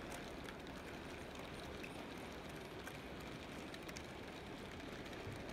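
A model railway goods train of loaded coal wagons rolling along the track: a steady, even rumble with a few faint ticks from the wheels on the rails.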